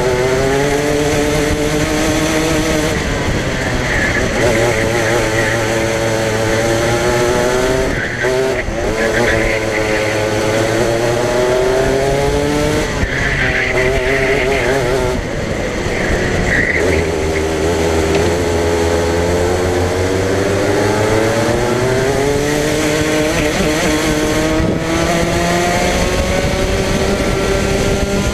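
Racing kart engine heard on board at full race pace, its pitch climbing on the straights and falling back into each corner about half a dozen times, with one long climb in the second half. Brief tyre squeal comes through the corners.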